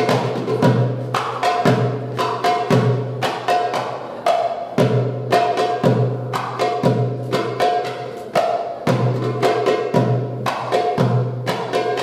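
Darbuka (Egyptian goblet drum) played live in a fast drum solo: deep bass strokes from the drum's centre mixed with quick, sharp rim strikes in a driving rhythm.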